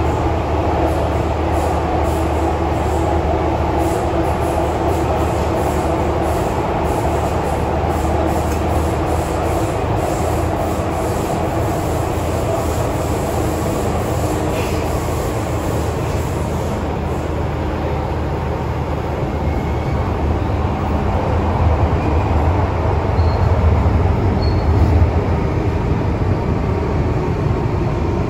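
MTR Tsuen Wan Line M-train running on the rails: a continuous loud rumble of wheels and motors, which swells louder about three-quarters of the way through.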